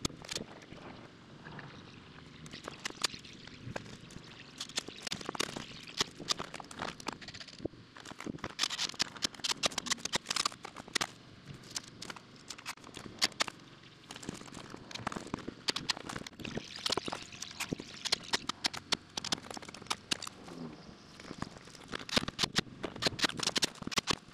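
Rapid, irregular knocks and clicks of carpentry work on a wooden shed frame and its plywood sheathing, bunching into dense clusters now and then.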